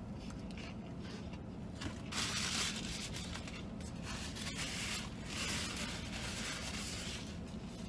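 Paper napkin rustling and crinkling in the hands, in two stretches about two seconds in and again from about five to seven seconds, over a low steady hum.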